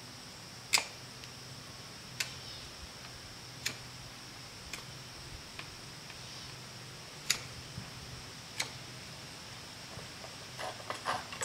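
Knife blade shaving wood from a hand-drill spindle: short, sharp scraping snicks, one every second or so, with a quick run of small clicks near the end.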